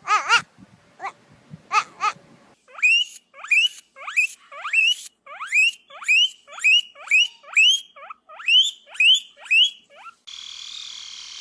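An animal giving a run of short squeaky calls, each rising sharply in pitch, about two a second. Near the end the calls give way to a brief patch of harsh, hiss-like noise.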